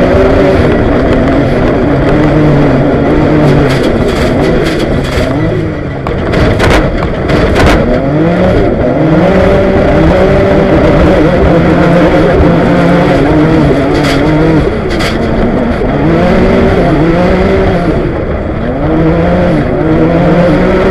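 Jimco desert racing buggy's engine at speed, heard from on board, its revs rising and falling again and again through the gears. Sharp knocks and rattles come through about four to eight seconds in and again around fourteen seconds.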